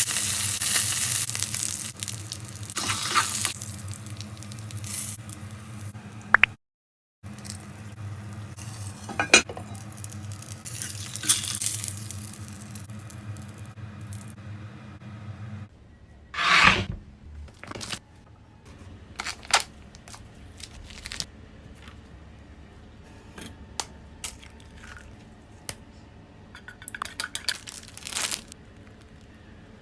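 Food sizzling in a hot pan for the first several seconds and dying away, then, after a brief cut, scattered clicks, clinks and scrapes of utensils and food being handled.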